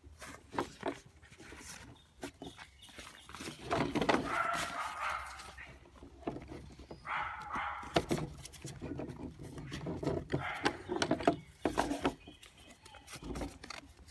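Backpack chair being fitted together by hand: scattered light clicks and knocks from the chair's frame, with longer rustling handling stretches about four and seven seconds in.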